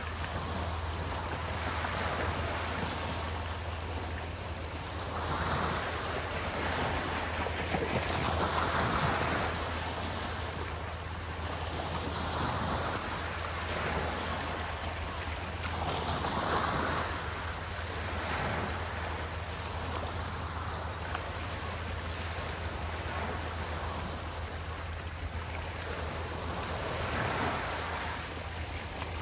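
Small waves washing onto the shore, swelling and fading every few seconds, over a steady low rumble.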